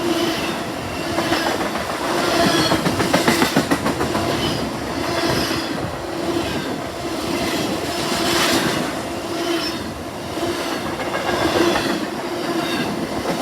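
Freight train rolling past, its wheels clattering over the rail joints in a repeating rhythm that swells about every second and a half, with a quick run of clicks about three to four seconds in.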